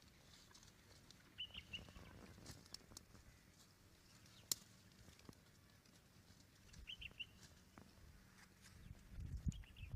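Quiet outdoor ambience: a small bird chirps twice, each a quick run of three high notes, over scattered faint clicks. Near the end, low rustling and crunching start up as cows graze close by.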